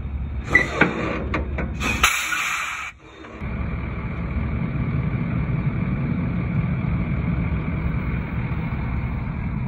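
A log truck's diesel engine running as it pulls away, a steady low rumble that starts about three seconds in. Before it come a few clicks and two short bursts of hiss.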